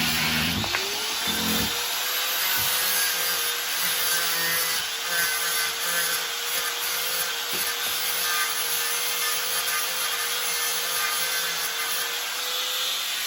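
Angle grinder spinning up about half a second in and running at a steady pitch, with the hiss of its disc cutting off the protruding ends of floor-adjusting bolts.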